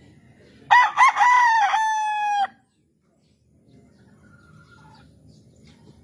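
A rooster crows once, a call of about two seconds. It starts with a couple of short broken notes, then holds one long note that drops slightly in pitch before stopping abruptly.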